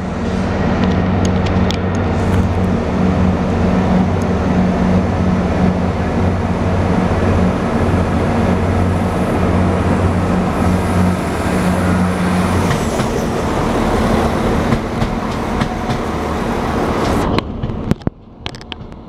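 Irish Rail diesel railcars at a station: a steady low engine drone that stops about two-thirds of the way through, over the running noise of a 29000 Class diesel multiple unit rolling in to the platform. The sound cuts off abruptly near the end.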